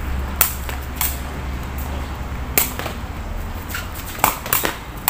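Sepak takraw ball being kicked back and forth in a rally: about six sharp smacks of the ball off players' feet at irregular intervals, with a quick pair near the end, over a steady low rumble.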